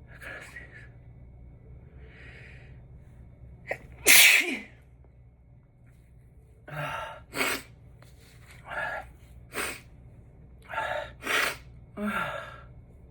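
A person sneezing hard and repeatedly, the sneezes induced on purpose and let out unstifled. The loudest single sneeze comes about four seconds in. It is followed by a run of sneezes, each preceded by a gasping in-breath.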